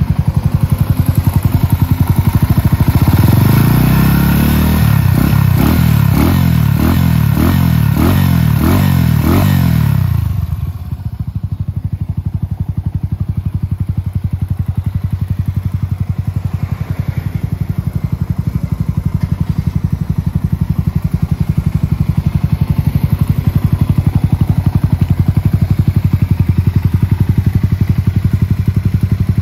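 Yamaha TW200's single-cylinder four-stroke engine, breathing through an aftermarket slip-on muffler, blipped repeatedly about once a second for several seconds. From about ten seconds in it settles to a steady idle.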